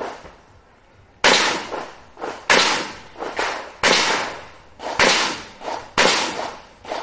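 Revolver shots in a competition string: after a short pause, a series of sharp shots about a second apart, with quieter cracks between the loudest ones.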